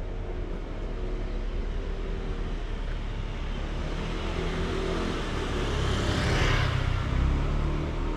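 A car passing close by, its tyre and engine noise swelling to a peak about six and a half seconds in and then fading, over a steady low engine hum of street traffic.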